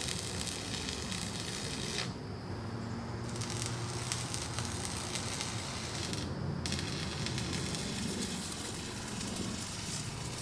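Arc welding on steel: the stick welder's arc crackling and sizzling as beads are laid. It comes in three runs, breaking off for about a second around two seconds in and briefly again near six seconds in.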